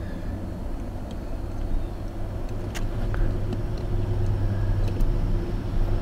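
Steady low running hum of the vehicle, growing a little louder about halfway through, with a few faint clicks from test probes and the connector being handled.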